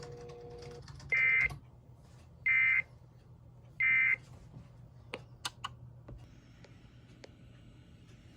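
Emergency Alert System end-of-message data bursts: three short, identical digital warbling tone bursts, each about a third of a second, spaced about 1.4 s apart, marking the end of the alert. A steady pitched tone stops under a second in, and a few sharp clicks follow over a low hum.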